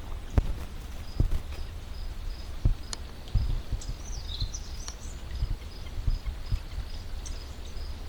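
Footsteps walking along a woods trail: irregular soft thuds over a steady low rumble. A faint high peep repeats evenly throughout, and a short bird-like chirp comes about halfway through.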